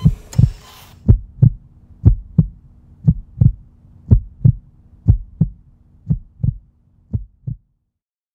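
Heartbeat sound effect: paired lub-dub beats about once a second over a faint steady hum, growing fainter and stopping about seven and a half seconds in.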